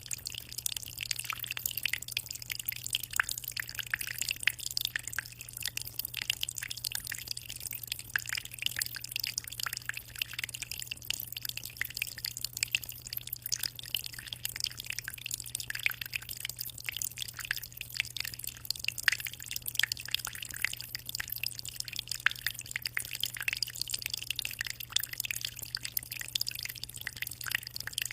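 Aquarium water: a constant rapid patter of small drips and splashes at the water surface of a 60-litre tank, over a steady low hum.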